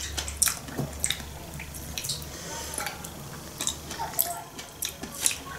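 Eating sounds: scattered light, wet clicks of chewing and mouth noises, with the odd soft tap of a fork picking up chopped salad.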